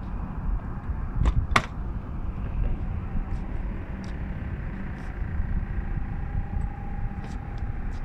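The Gulfstream 450's cabin door handle and latch being worked, giving two sharp clicks about a second and a half in, then a few fainter ticks as the door swings open, over a steady low rumble. A faint steady whine starts about six seconds in.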